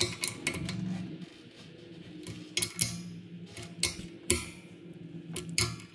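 Ratchet wrench with a socket on an extension tightening the cylinder-head bolts of an air compressor pump: irregular ratchet clicks and small metal clinks, in short clusters with pauses between them.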